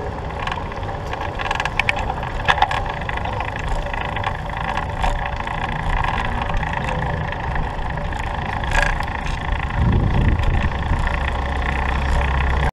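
Riding noise from a recumbent trike on the move: a steady rumble of road and rolling noise, with a few sharp clicks and rattles about two seconds in.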